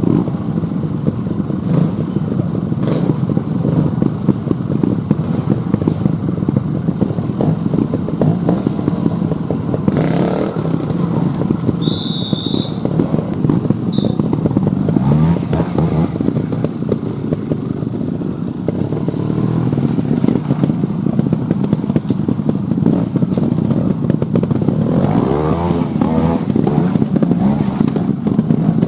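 Trials motorcycles' single-cylinder engines running steadily, with the throttle blipped in rising and falling revs near the end.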